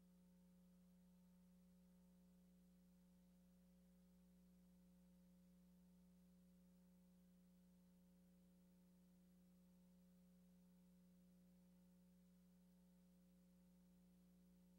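Near silence with a faint, steady low hum that does not change.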